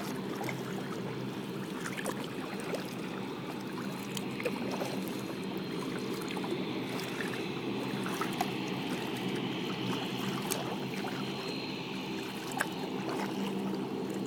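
Small waves lapping and trickling against a kayak's hull, with scattered little splashes and a steady low hum underneath.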